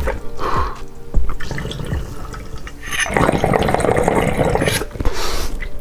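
Water bubbling in a glass bong as smoke is drawn through it, building to a steady gurgle about three seconds in.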